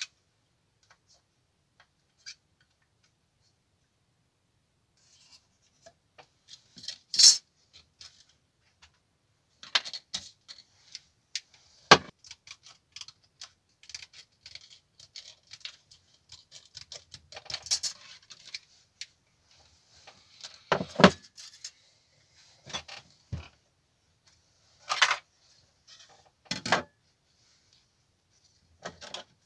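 Scattered clicks, taps and rustles of hand work on a thin clear lexan (polycarbonate) sheet and a small plastic model-truck cab, with quiet gaps between. A few sharper knocks stand out, the loudest about twelve seconds in.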